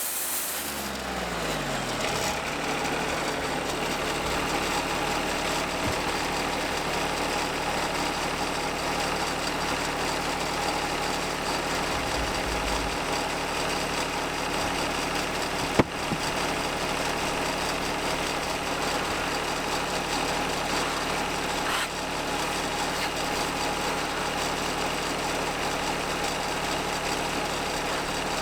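Portable band sawmill's engine running steadily at idle after the saw cut ends, with a falling whine in the first two seconds. A single sharp click about halfway through and another fainter one later.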